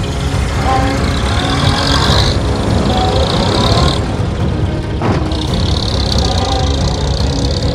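Animated car engine sound effects: engines running as vehicles drive, with the pitch gliding up and down in places.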